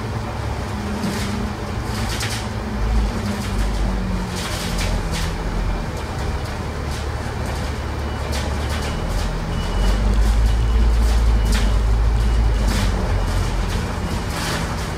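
Alexander Dennis Enviro500 MMC double-decker bus under way, heard from inside the upper deck: a steady low diesel rumble whose engine note shifts up and down, with road noise and frequent short rattling clicks. The rumble swells about ten seconds in.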